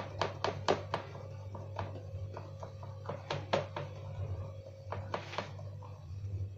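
A hand patting and pressing soft dough rounds flat on an aluminium baking tray. The taps come several a second at first, then fewer and farther apart, over a steady low hum.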